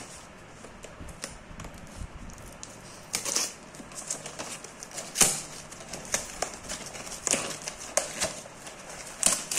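Hands tearing and prying open a tightly packed cardboard parcel: irregular crackles, rips and scrapes of cardboard and packing tape, with a sharper snap about five seconds in.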